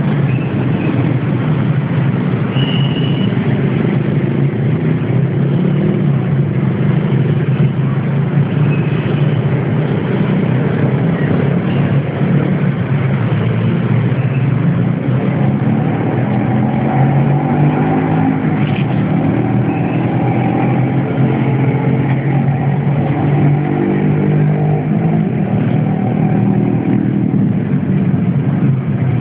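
An engine running steadily and loud, its low hum holding through with small shifts in pitch.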